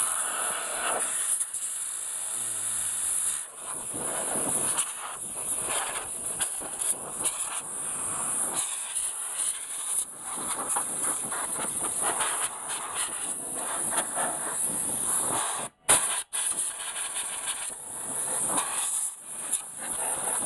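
Compressed air hissing steadily from a nozzle, blowing dust out of an open desktop computer case. The air stops twice for a moment about three-quarters of the way through, then carries on.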